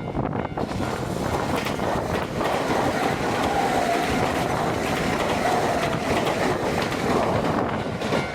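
Nankai 6200 series electric train passing over a level crossing: a steady rumble of wheels with rapid clicks over the rail joints, and a wavering whine through the middle of the pass.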